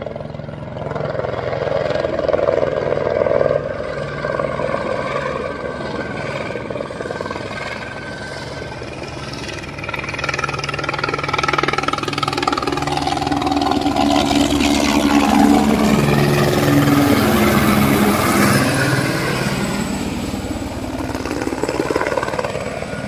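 Light helicopter flying overhead: a steady rotor chop over the engine and turbine whine. It grows louder in the second half as it passes close, and its pitch falls and rises again as it goes by.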